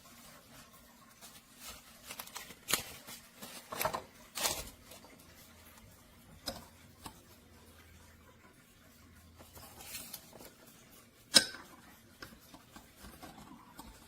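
Scattered light clicks, taps and rustles of small kitchen items being handled, with a few louder knocks about three to four and a half seconds in and a single sharp click about eleven seconds in.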